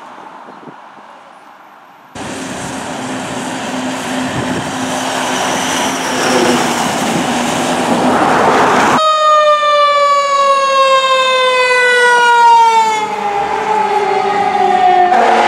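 Fire apparatus responding: a loud wash of passing truck engine and road noise, then from about nine seconds a siren tone that slides slowly down in pitch for several seconds.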